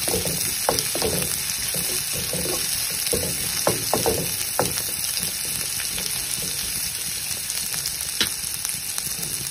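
Sliced onions sizzling steadily in hot oil in a nonstick kadai, with a spatula scraping and stirring them through roughly the first half. After that only the sizzle goes on, with a single sharp click near the end.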